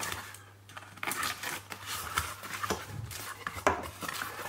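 Cardboard shipping box being opened by hand: flaps and packing tape rustling, scraping and crackling in quick, irregular handling noises, sparse for about a second and then busier.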